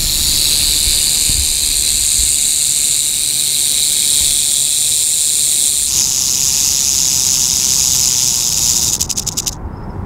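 Tiger rattlesnake rattling its tail in a steady high buzz. The buzz shifts slightly lower about six seconds in, then falters into separate strokes and stops just before the end. It is the snake's defensive warning.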